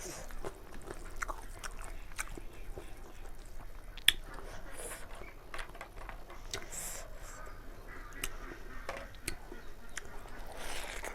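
Close-miked eating: a person chewing and biting chicken curry, with wet mouth clicks and a sharper click about four seconds in, plus a few short hissy sounds.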